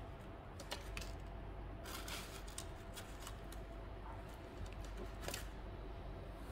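Faint handling noise: scattered light clicks and a few short rustles, the loudest about two seconds in and again a little after five seconds, over a low steady hum.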